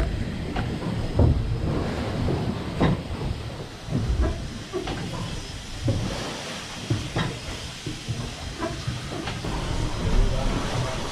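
Levant Mine whim engine, a steam beam engine, running under steam: a steady low rumble and hiss with repeated clanks and knocks from its moving parts, about one or two a second.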